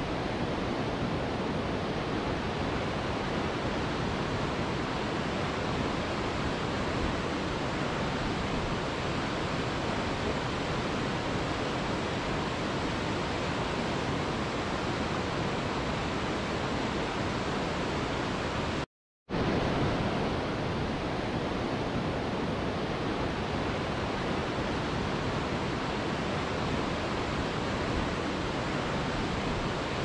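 Waterfall rushing steadily, an even unbroken noise, cut off to silence for a moment about nineteen seconds in before resuming.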